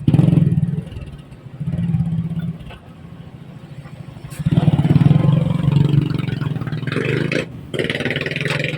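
A motor or engine running in three loud bursts, at a fairly steady pitch, with short lulls between.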